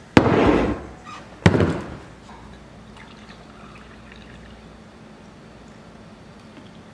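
Liquid poured in two short pours, the first lasting under a second and the second, with a sharp start, about a second later.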